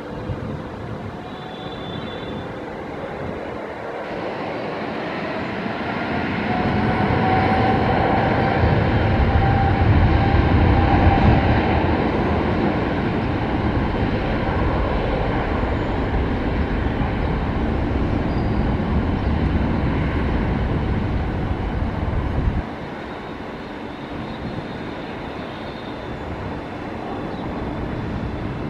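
Boeing 787-8's GEnx-1B turbofan engines at take-off power during the take-off roll: a steady roar that grows louder over the first ten seconds or so, with a faint whine on top. The low rumble drops away suddenly about 23 seconds in, then the roar carries on more quietly.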